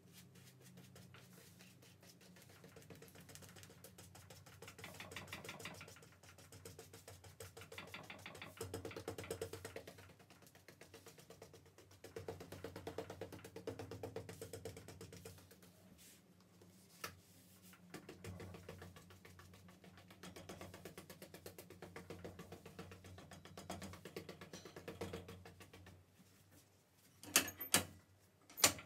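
Glue brush scrubbing back and forth across the paper edges of a clamped document block's spine for adhesive binding: a faint, rapid ticking rasp that comes and goes in bouts of strokes. A few sharp clacks near the end as the metal binding press is handled.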